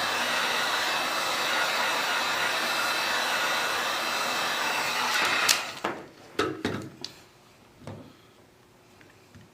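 Heat gun blowing steadily, warming the phone's glass to soften the screen adhesive; it is switched off about five and a half seconds in, followed by a few light clicks and knocks.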